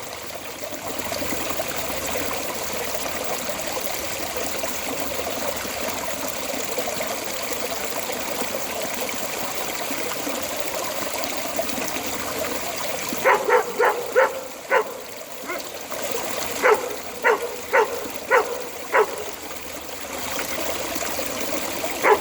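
Water flowing steadily out of a storm drain. Past the middle, a dog barks in two quick runs of short barks.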